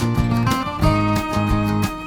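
Background music: a plucked, strummed acoustic guitar with a steady beat.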